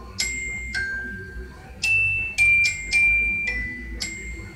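A glockenspiel-like melody of bright bell tones, about eight separate notes stepping up and down in pitch, loudest in the middle, heard through a television's speaker.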